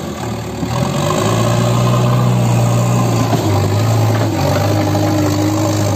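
JCB 3DX backhoe loader's diesel engine running while the front loader bucket is worked, its note rising about a second in and dropping a little past halfway. A brief steady whine joins it near the end.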